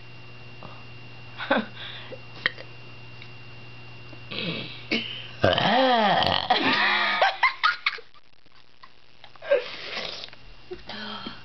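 A woman burping: one long, loud burp about five seconds in, its pitch rising and then falling, with a few shorter throat sounds before and after it.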